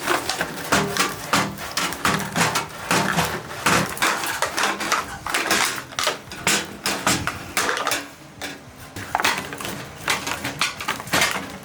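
Steel balls inside a brass tuba's tubing knocking and rattling against the metal wall as a rare-earth magnet drags them back and forth over a dent from the outside: quick, irregular clacking, several knocks a second, with a short lull about eight seconds in.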